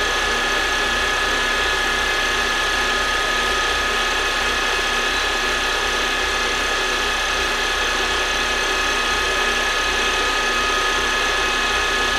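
Milling machine head running with a fly cutter face-milling an aluminium plate. The sound is a loud, steady machine noise with a high whine.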